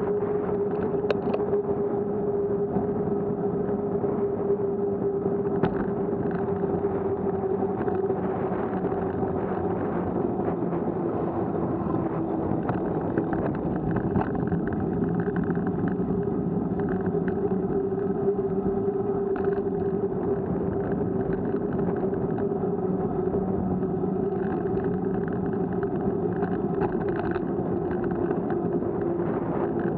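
A vehicle engine running at a steady pace with a constant drone over road and wind noise, its pitch sagging slightly around the middle as the vehicle slows into a turn.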